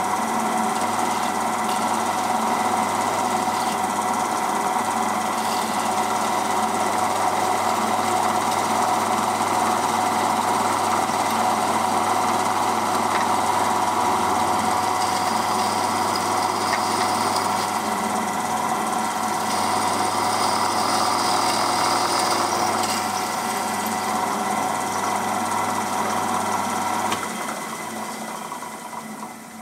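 Bench drill press running steadily, its bit drilling a 3/16-inch rivet hole through a copper boiler barrel and butt strip with a rough, chattering cutting noise. The drill stops and the sound dies away near the end.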